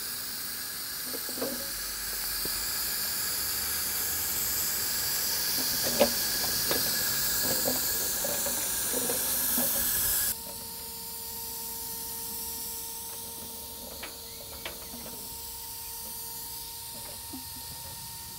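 A live-steam model locomotive hissing steam, with scattered light clicks. The hiss drops sharply about ten seconds in, after which it continues more weakly over a faint steady tone.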